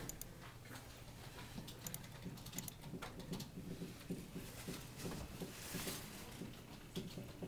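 Quiet room tone with a steady low hum and scattered light clicks and ticks, and a short patch of hiss near the end.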